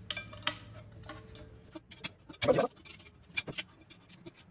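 Small metallic clicks and ticks of an Allen wrench and steel screws being snugged into the aluminum table's center-post bracket, some with a brief faint ring. A short, louder rub of hands on metal comes about halfway through.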